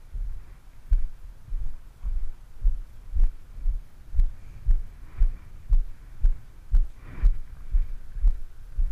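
Walking footsteps on pavement, picked up as low thuds through a body-worn camera, about two steps a second.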